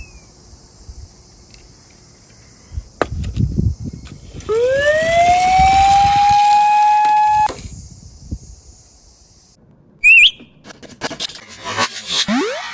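A siren sound effect winds up in pitch to a steady wail, holds for about three seconds, and cuts off suddenly; a low rumble comes just before it. Near the end a short high warble and a string of clicks and quick rising whistle-like glides follow.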